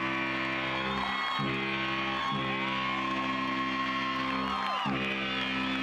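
Background music: a song with sustained low notes that change every second or so and a sliding melody over them.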